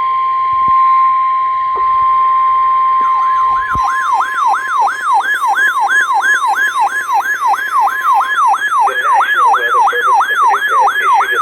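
Weather radio alert: a steady 1050 Hz warning alarm tone for about four seconds, then an electronic siren alarm that warbles rapidly up and down, about two or three sweeps a second, marking a new severe thunderstorm warning.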